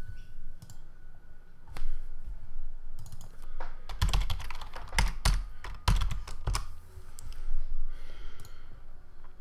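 Typing on a computer keyboard: irregular keystrokes, thickest between about four and six and a half seconds in.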